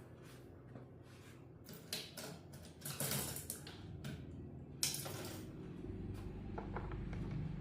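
Small handling sounds on a workbench: scattered light clicks and scrapes of tools and small parts being moved, with two louder rustling scrapes about three and five seconds in, over a faint steady hum.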